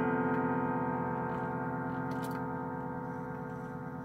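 Chimes of a 1981 Howard Miller grandfather clock ringing on and slowly fading in a gap between hammer strikes of the chime tune, with the clock's ticking running underneath.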